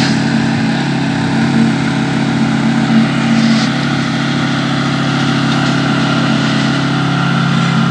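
A small engine running steadily at a constant speed, with a few faint knocks over it.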